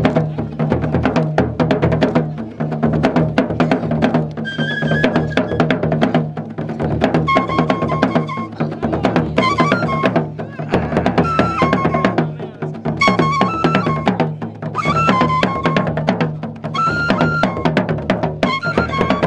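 Traditional skin-headed drums beaten with curved sticks in a dense, fast, continuous rhythm. Above them runs a high melody of short held notes that step up and down.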